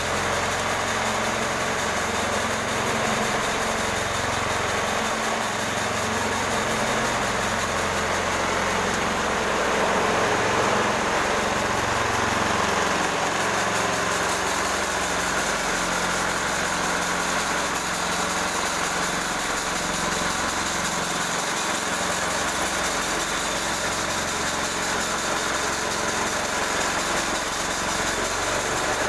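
Engine-driven portable bandsaw mill running steadily while its head is pushed along a log, the blade sawing through the timber.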